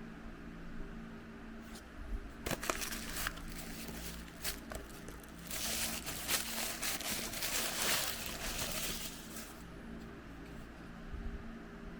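Plastic packaging being handled and opened: a few sharp clicks and taps, then about four seconds of crinkling from about the middle on.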